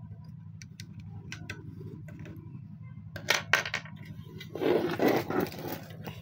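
Light clicks and taps of hands handling an opened inverter welding machine and its circuit board, with two sharper clicks about three seconds in. About a second of louder scraping and rustling follows near the end, all over a steady low hum.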